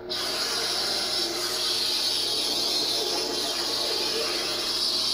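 Vader's Vault Dark Wrath Nightmare lightsaber's speaker playing a sound-font hum, a steady crackly hiss that cuts in suddenly.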